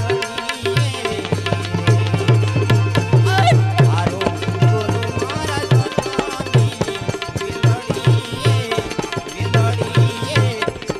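Music from a Gujarati devotional song: a hand drum plays a steady, even rhythm of deep strokes under sustained melodic tones.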